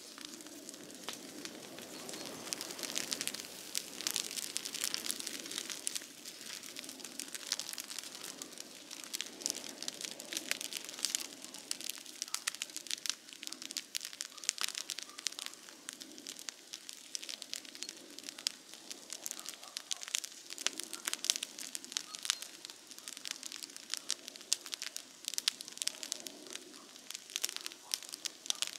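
Campfire crackling, with many small sharp pops and snaps from the burning wood, over a steady low rush.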